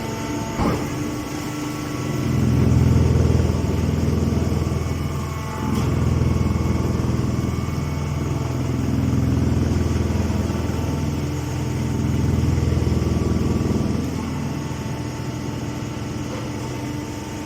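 Mini hydraulic hay baler's power unit running with a steady hum that grows louder for a few seconds at a time, four times. A brief click comes under a second in.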